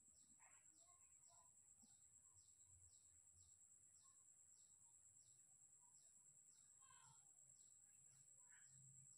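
Near silence: faint room tone with a steady high hiss and a faint short chirp repeating about twice a second.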